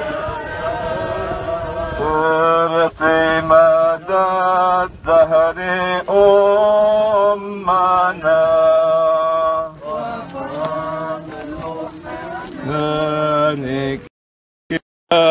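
A man's voice chanting a hymn in long, held notes. The sound cuts out to silence for about a second near the end.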